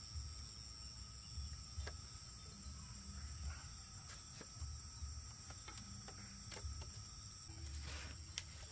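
Steady, high-pitched chorus of insects such as crickets, with a few faint knocks and taps scattered through it.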